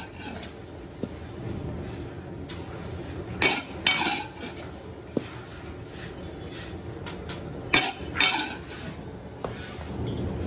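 Sesame seeds being pushed and pressed by hand in a large iron kadhai: a low, dry scraping of seeds against the iron, broken by scattered sharp metallic clinks and knocks on the pan, two louder pairs of them, one near the middle and one later on.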